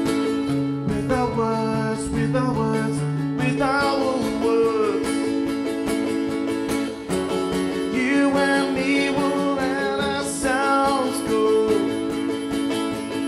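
A man singing live to his own strummed acoustic guitar, the strumming keeping a steady rhythm under a sustained, wavering vocal melody.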